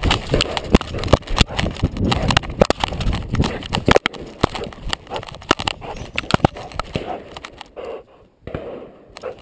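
Labrador retriever's paws running through snow, heard close up from a collar-mounted camera: a dense, irregular run of thuds and crunches that drops away briefly about eight seconds in, then picks up again.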